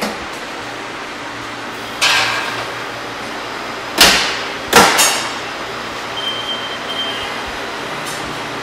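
Commercial convection oven being loaded and shut: a metal clatter about two seconds in as the sheet pan goes onto the rack, then two loud metal bangs a little under a second apart as the steel oven doors close. A steady fan noise runs underneath.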